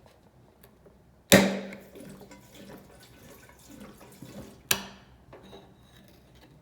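Gasoline being poured into a motorcycle fuel tank in two short gushes, the first about a second in and the second about three seconds later, each loud at the start and fading quickly.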